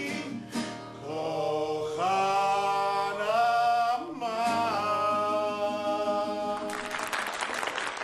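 A song's closing sung phrase: a few long notes held steadily, each changing pitch at the joins. About seven seconds in, the singing stops and applause breaks out.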